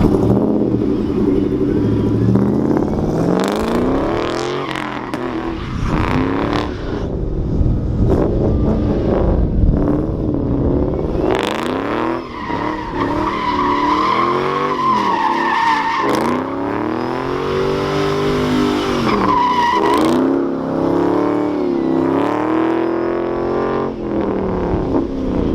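A car being drifted: its engine revs up and falls back again and again, with the tires squealing in long stretches around the middle.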